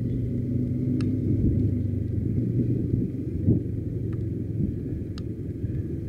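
Motorcycle engine running with a steady low rumble that eases and turns rougher about halfway through, with a few faint clicks.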